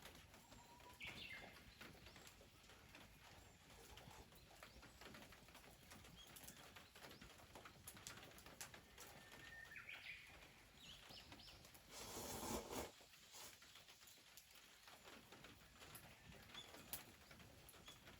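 Near-silent outdoor ambience with faint wild bird calls: a few short chirps about a second in and again around ten to eleven seconds. A brief rushing noise about twelve seconds in is the loudest sound, with faint scattered clicks throughout.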